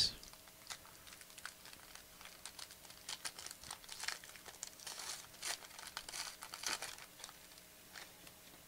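Plastic wrapper of a trading card pack being crinkled and torn open by hand: faint, irregular crackling that gets denser in the second half.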